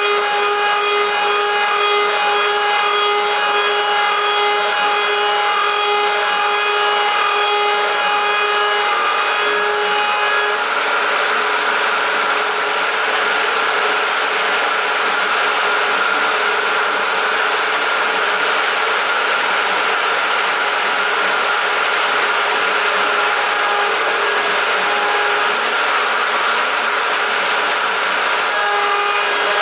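Router spindle of a WorkBee CNC running at high speed with a steady high whine while an end mill cuts 6061 aluminium. About ten seconds in, a dense hiss of cutting noise covers the whine, which comes back clear near the end.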